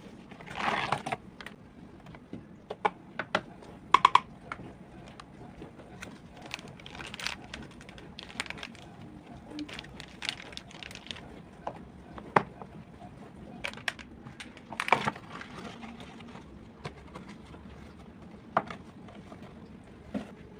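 Scattered light clicks, taps and clinks of household objects being handled and set down, a few sharper knocks among them, over a faint steady background hum.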